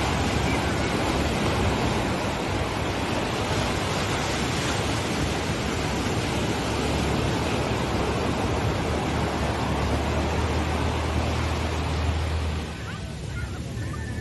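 Ocean surf breaking and washing up the beach, a steady rushing that eases near the end.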